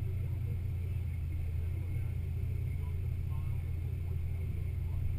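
A Jeep's engine running steadily at low speed as it drives along beach sand, heard as an even low rumble.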